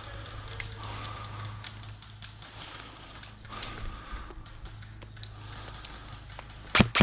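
Low steady hum with scattered light clicks and rustling, then near the end a rapid string of sharp cracks from airsoft guns firing.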